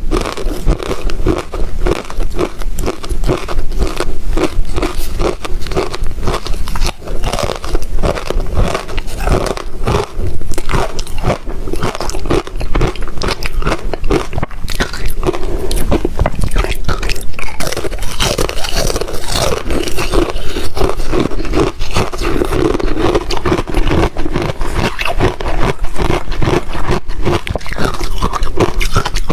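Rectangular ice chips being bitten and chewed close to the microphone: a continuous run of loud, crisp crunches, several a second, with no pauses.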